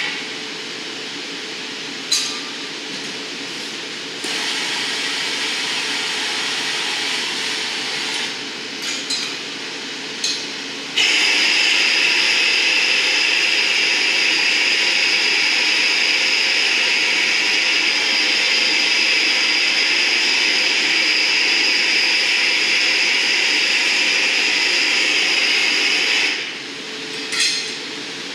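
Handheld glassworking torch flame hissing steadily as it heats the glass vase, growing louder about ten seconds in and cutting off shortly before the end. A few sharp clinks of tools on glass come at the start and near the end.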